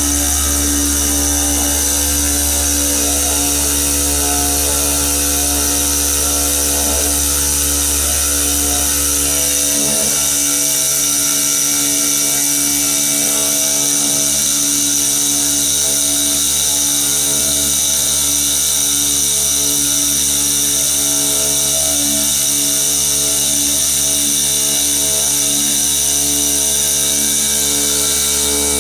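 Five-axis CNC router's 12 kW water-cooled spindle running while its tool cuts a stone block under coolant spray: a loud, steady machining whine with a high hiss. A low hum underneath drops away about ten seconds in.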